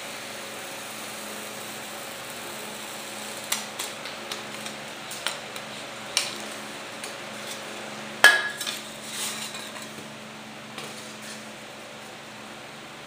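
Light clicks and knocks of small metal parts and tools being handled and set down on a wooden work table, with one sharp knock about eight seconds in that rings briefly; a steady low hum runs underneath.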